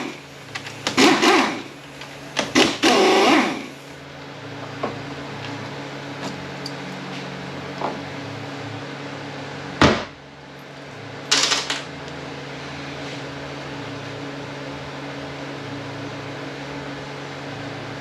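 Hand tools taking out the 10 mm valve-body bolts on an AW30-80LE automatic transmission: a few short, loud, rattling bursts of tool work, a single sharp knock about ten seconds in, and another burst just after, over a steady shop hum.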